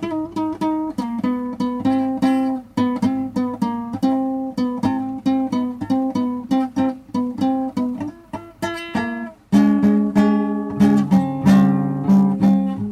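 Solo blues improvisation on a plucked string instrument: a quick run of single picked notes, growing louder and fuller with lower notes about nine and a half seconds in.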